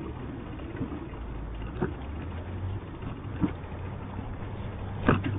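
City street traffic and road noise heard from a moving bicycle: a steady low rumble of passing and idling cars under an even hiss.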